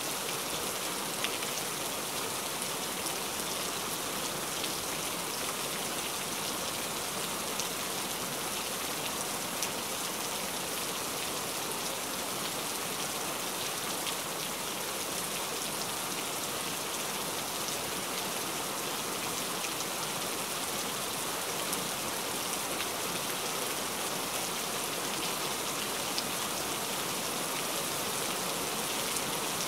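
Steady rain falling, an even hiss with an occasional single drop ticking a little louder.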